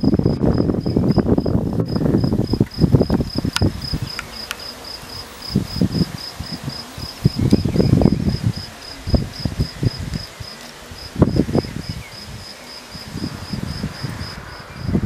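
A cricket chirping steadily, a high note pulsing about four times a second, over irregular gusts of wind buffeting the microphone.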